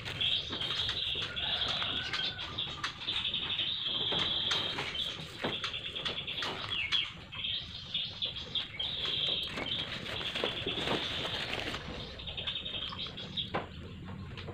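Crickets chirping in a steady high trill at one pitch, breaking off briefly now and then. Soft rustling and light ticks come as cricket eggs are scattered by hand onto sawdust.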